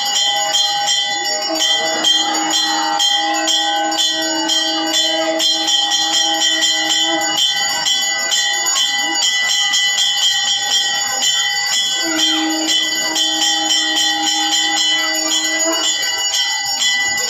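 Temple bells rung rapidly and continuously, ringing on without a break. A long steady held tone sounds twice, each time for several seconds.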